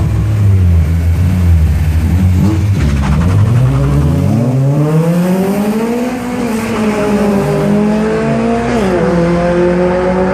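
Cars launching from a standing start in a street drag race: the engines hold low revs, then wind up steadily in pitch as they accelerate away. Near the end there is a sudden drop in pitch as a gear is shifted, and the engines climb again.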